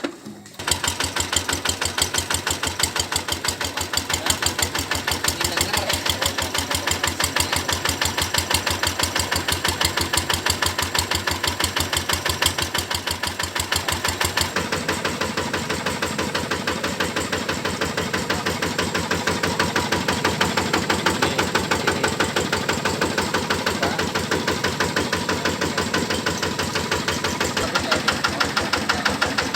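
Kubota RD110 single-cylinder diesel engine of a mini combine harvester running steadily with a rapid, even knocking beat. It starts suddenly about half a second in.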